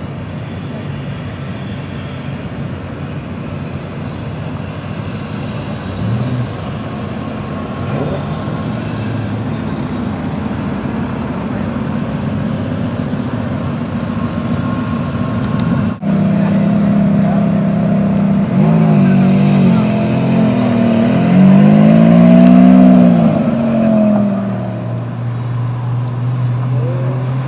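Sports car engines running at low revs as the cars crawl past. After a cut, a Ferrari V8 is revved up and down in several quick blips, the loudest part, then settles to a lower steady note.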